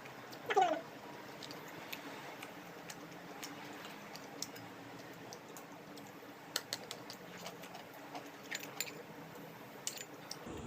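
Eating sounds: chewing with scattered light clicks of a spoon and dishes, and a short falling squeak about half a second in.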